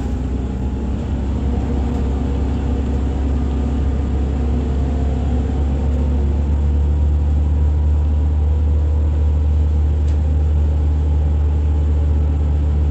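Irisbus Citelis 18 articulated city bus with its IVECO Cursor 8 diesel, a steady low engine rumble heard from inside the passenger cabin.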